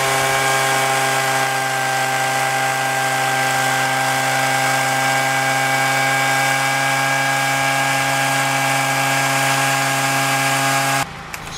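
Small petrol engine of a walk-behind lavender harvester running steadily at constant speed, a single unchanging buzzing note, cut off abruptly near the end.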